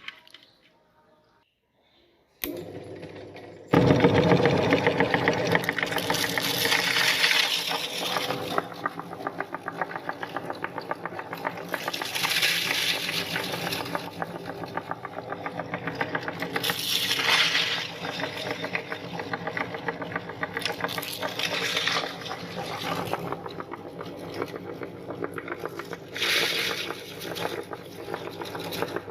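Electric meat grinder switched on a couple of seconds in, then running steadily with a motor hum while crushing Chocos chocolate cereal, a dense rapid crunching rattle that swells louder every few seconds as more cereal is fed in.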